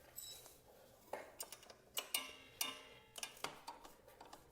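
Faint, irregular metallic clicks and taps, a couple with a short ring, from hands and tools working at a motorcycle's rear brake caliper during a brake-fluid flush.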